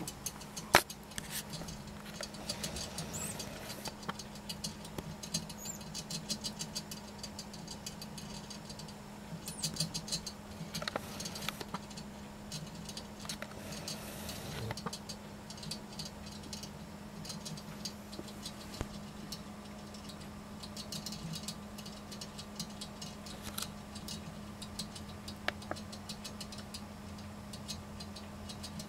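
Gerbil licking at the metal spout of a hanging water bottle: runs of rapid, fine ticking and rattling from the sipper tube, with a sharper click about a second in. A steady low hum runs underneath.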